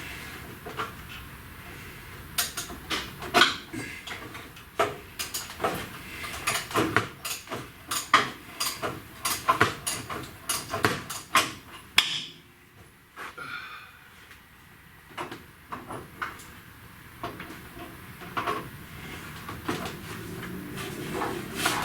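Irregular sharp metallic clicks and clanks of hand tools working on a stuck fastener that is hard to turn. They come thick and fast at first, pause briefly about halfway through, then come more sparsely.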